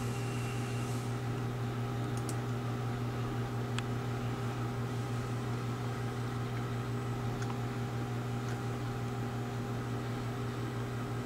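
Steady low electrical hum with a few faint, scattered clicks of a computer mouse.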